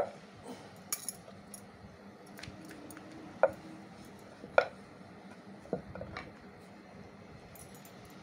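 A wooden rolling pin rolling papad dough thin on a wooden board, with scattered light knocks of the pin against the board and clinks of the roller's bangles. The two loudest clinks come about three and a half and four and a half seconds in.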